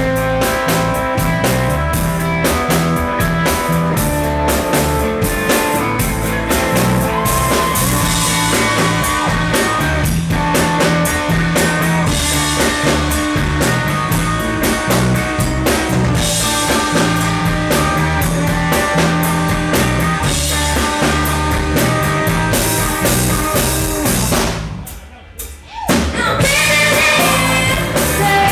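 Live rock band playing an instrumental stretch on drum kit, bass and electric guitar. About three-quarters of the way through the music cuts out almost completely for a second or so, then the full band comes back in with a woman singing.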